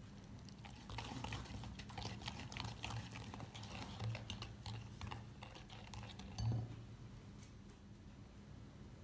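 Whisk clicking rapidly against a glass bowl while beating eggs and sugar, with a single louder thump about six and a half seconds in.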